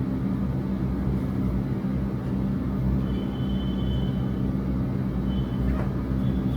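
Steady low mechanical hum over a rumble, holding even throughout, with a faint thin high tone a few seconds in.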